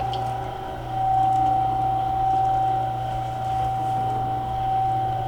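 A steady low electrical hum with a single high-pitched, unwavering whine over it, as from a running machine; it dips slightly in the first second.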